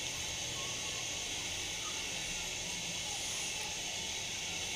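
Steady background hiss, even throughout, with a constant high-pitched band and no distinct knocks, clicks or tool sounds.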